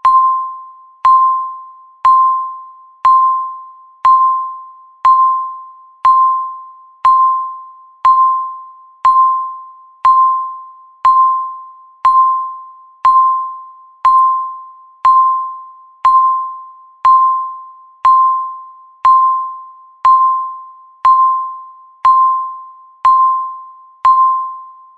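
Countdown timer's electronic beep sounding once every second: a single clear mid-pitched tone, each struck sharply and fading away, about 25 beeps in a row.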